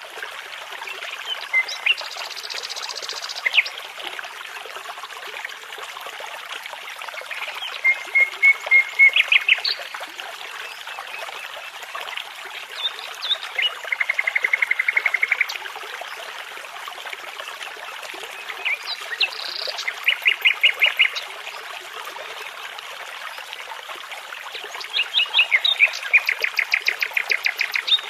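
Songbird singing in separate phrases of rapidly repeated notes and a fast trill, over the steady rush of a babbling brook.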